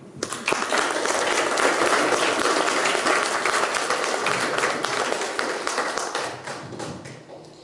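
Applause from an audience and the cast: many hands clapping, starting just after the start and dying away near the end.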